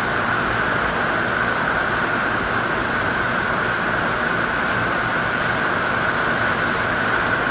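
Steady rain downpour, with rainwater pouring off a roof edge in a stream and splashing below.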